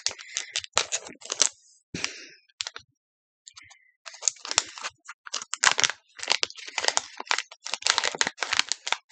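A Pokémon card mystery pack's wrapper being torn open and crinkled by hand: a run of sharp crackles, with a short pause about three seconds in.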